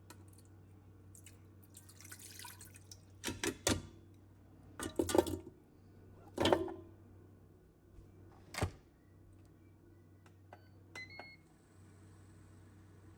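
A handful of separate sharp knocks and clatters, like objects being handled and set down, over a low room hum. A brief rustle comes about two seconds in, and a few small ticks near the end.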